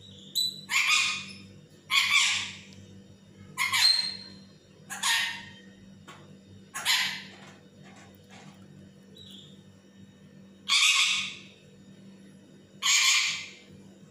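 Lutino Indian ringneck parakeet giving loud, harsh squawks, seven in all, each about half a second long and spaced irregularly one to four seconds apart, over a faint steady room hum.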